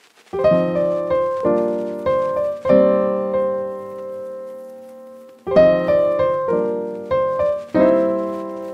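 Solo piano background music: chords struck one after another, each dying away. A long chord is held and fades for about two seconds in the middle before the playing picks up again.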